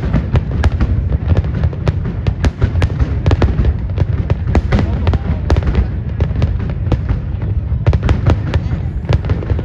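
Aerial fireworks display in full barrage: sharp cracks and bangs come several times a second over a continuous low rumble of booming shells.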